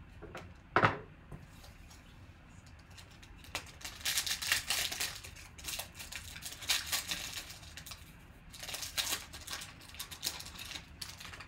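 A sharp knock, then a foil trading-card pack being torn open and its wrapper crinkled by hand, in several short crinkly rips.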